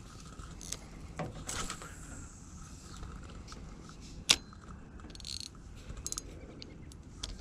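Spinning reel being handled on a fishing rod: scattered small mechanical clicks and rattles, with one sharper click about four seconds in.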